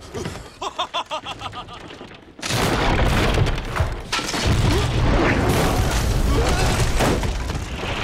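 A quick run of about eight short pitched pulses, then about two and a half seconds in a sudden loud deep boom that carries on as a heavy, steady rumble.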